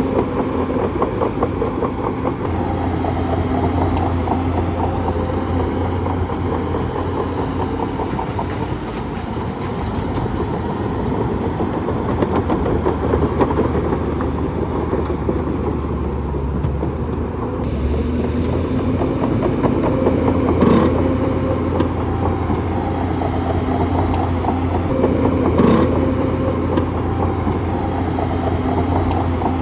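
Bulldozer's diesel engine running steadily, with a rapid rhythmic pulse over a low hum. Two sharp knocks are heard in the second half.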